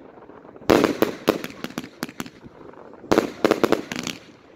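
Consumer firework battery firing: two volleys about two and a half seconds apart. Each is a sudden loud report followed by a quick string of sharp cracks and pops as the shells burst overhead.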